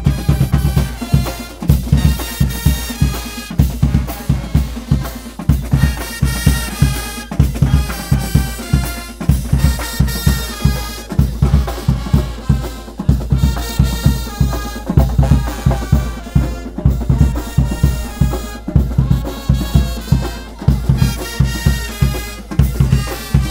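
Brass pep band playing an upbeat tune: a steady, quick drumbeat of bass and snare drum under trumpets, saxophone and sousaphone.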